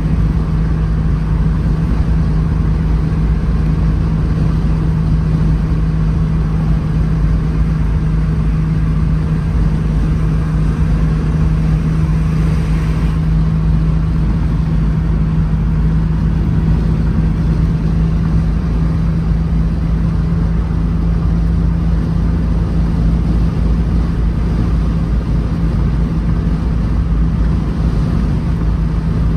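1983 Alfa Romeo GTV6's 2.5-litre V6 heard from inside the cabin, holding a steady drone at constant highway cruising speed over tyre and road rumble. A brief swell of hiss comes about twelve seconds in.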